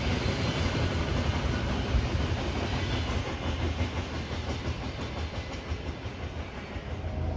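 Freight train rolling past on the rails, its sound slowly fading.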